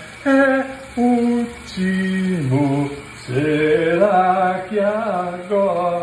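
A man singing happily without accompaniment, in long held notes that step up and down, in short phrases with brief breaks between them.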